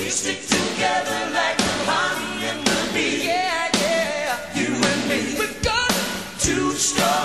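A pop song with a singing voice over a beat of sharp drum hits, roughly once a second.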